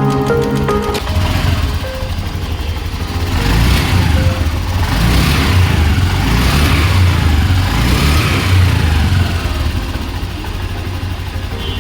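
Honda Activa 6G scooter engine running and revved several times, the pitch falling back after each rev.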